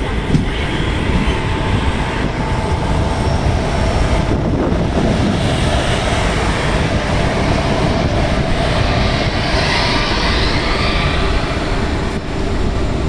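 Pair of WCAM3 dual-current electric locomotives hauling an arriving express train, rolling past close by. It is a loud, continuous rumble of wheels on rail with a faint steady hum, and a brighter hiss swells and fades a few seconds before the end.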